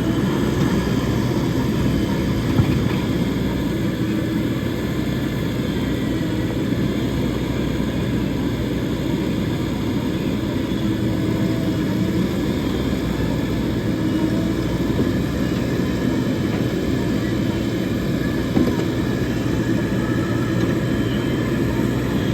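JCB backhoe loader's diesel engine running steadily under working load, with a couple of brief clunks.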